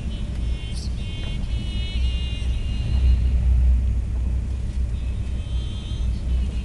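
Thalys high-speed train running at speed, heard inside the passenger carriage: a steady deep rumble, with a thin high whine that comes and goes.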